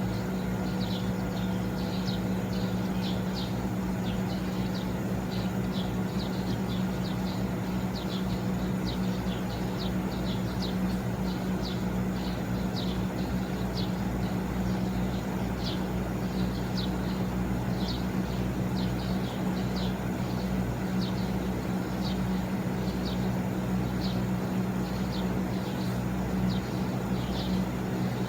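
Teco MS-LV36IH inverter air conditioner running steadily with its fan up to speed: a low, steady hum with a few fainter steady tones above it. Over it, short high chirps repeat irregularly about once a second.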